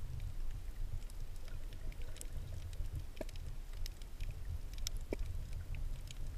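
Underwater sound as heard by a submerged camera on a coral reef: a steady low muffled rumble of moving water with scattered sharp clicks and crackles, and a couple of short low pops.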